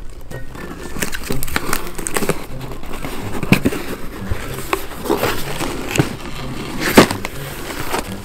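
Cardboard shipping box being handled and opened by hand: irregular rustling, scraping and sharp cracks of the cardboard flaps, the loudest about three and a half and seven seconds in.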